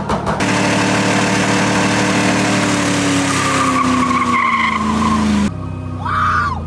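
Body-swapped Foxbody Mustang's engine run hard with tyres squealing and skidding, the revs sagging slowly. The engine and tyre noise drop away suddenly about five and a half seconds in.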